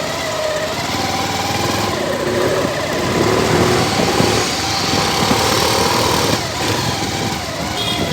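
Small motorcycle engine running steadily, with street noise.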